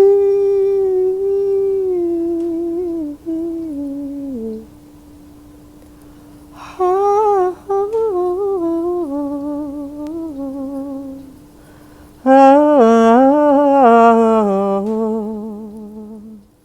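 A woman humming a slow, wordless improvised melody in three phrases, each drifting downward in pitch with vibrato on the held notes. A steady single drone note sounds underneath throughout.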